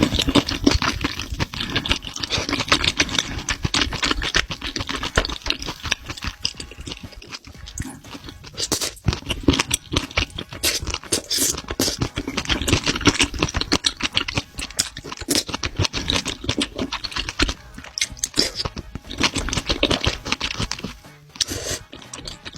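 Close-miked chewing of octopus: a dense run of wet smacks, squelches and small crunches from the mouth, coming in quick irregular bites with brief pauses.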